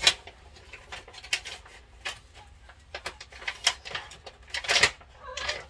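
Several sharp clicks and knocks of things being handled and moved, with quiet between them; the loudest knock comes near the end.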